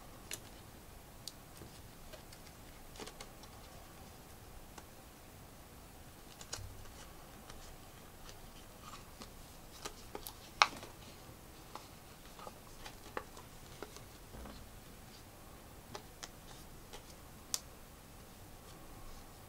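LEGO pieces clicking and tapping as they are handled and pressed together: scattered small clicks, with one sharper snap about halfway through.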